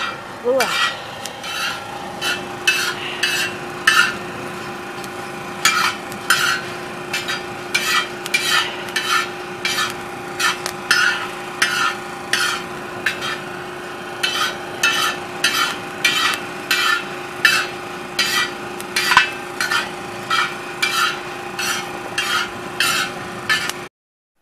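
Metal skimmer scraping and stirring coffee beans across a steel disco griddle, about two strokes a second with the beans rattling, over a steady hum. The sound cuts off abruptly near the end.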